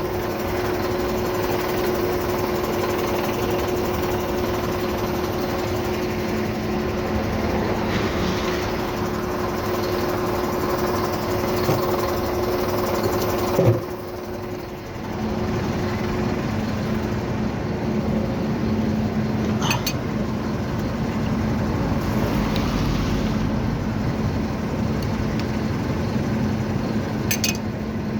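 Tow truck engine running steadily with a constant whine. About halfway through there is a sharp knock and the sound briefly drops, then it carries on at a lower pitch.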